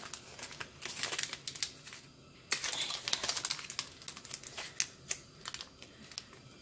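Crisp, irregular crackling and clicking in clusters as a pleated paper cupcake liner is handled and fitted around a hard caramel candy sphere.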